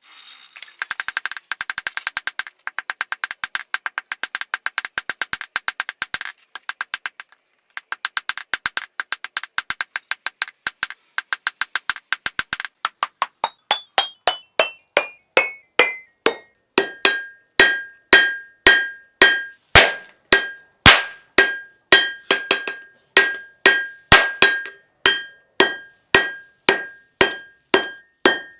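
Hammer blows on steel at the anvil while forging a san mai knife blade: a fast run of rapid strikes broken by short pauses, then slower, evenly spaced blows about two a second, each with a bright metallic ring that drops in pitch over several strikes and then holds steady.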